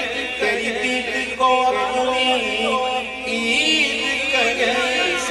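Devotional naat singing without words: long held sung notes over a chanted vocal background.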